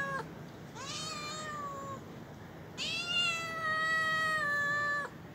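Domestic cat meowing: one meow cuts off right at the start, a shorter one follows about a second in, then a long drawn-out meow, each sliding down in pitch.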